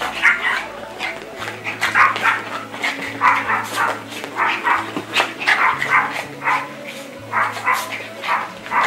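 Yorkshire terrier puppies play-fighting, giving many short, high barks and yips in quick succession, a few each second.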